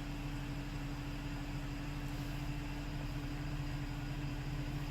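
Steady hum inside the cabin of a Porsche Cayenne: a low drone with one constant mid-pitched tone held throughout.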